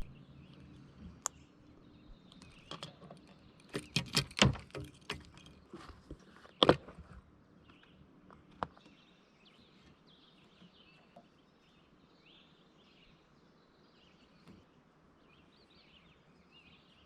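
Several sharp knocks and clatters in the first half, then faint birds chirping over quiet open-air ambience.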